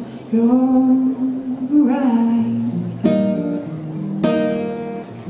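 Solo male voice holding a long sung note over acoustic guitar, then two strummed acoustic guitar chords about a second apart that ring out.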